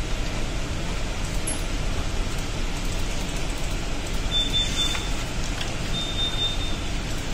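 Steady background noise with two short high-pitched beeps from the ECDIS workstation's alarm, about four and a half and six seconds in; the alarm is sounding for the faults on its alarm list.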